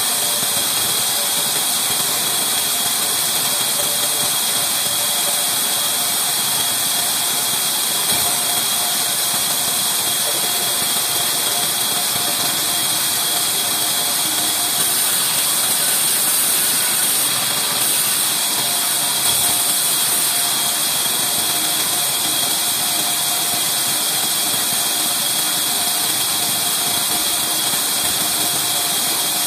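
Large vertical band saw running steadily: an even mechanical hum with a constant high hiss.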